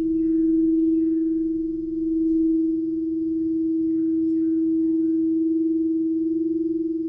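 Frosted crystal singing bowl sounding one steady, pure tone, kept going by a wand worked around its rim, swelling and easing gently in loudness.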